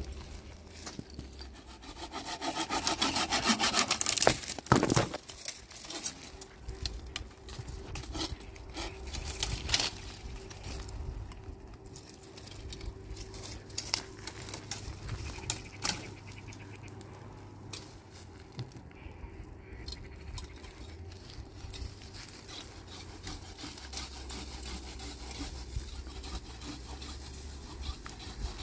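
Firewood being cut and handled: a loud, fast rasping run from about two to five seconds in, then scattered cracks and knocks of sticks and branches.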